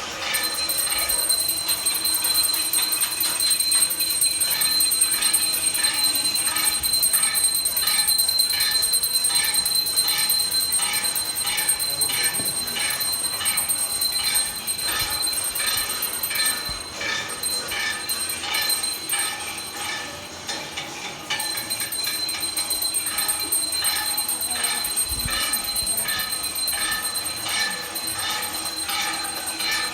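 Metal plates and utensils being banged and bells rung in a steady repeating rhythm, with a continuous high ringing tone over the strikes.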